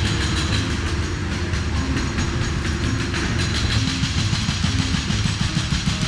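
Heavy construction machinery: a rapid, even mechanical hammering rattle over a low engine rumble.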